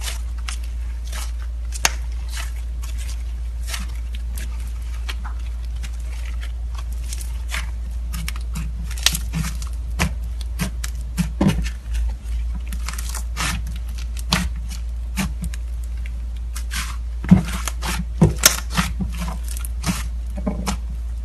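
Slime being kneaded and mixed with clay by hand, making irregular sticky clicks, small pops and crackles over a steady low hum.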